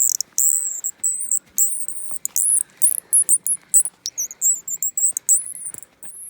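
Twist-type bird call, a screw turned in a wooden block, squeaked in a rapid string of high, squeaky chirps and short warbles with brief breaks between them.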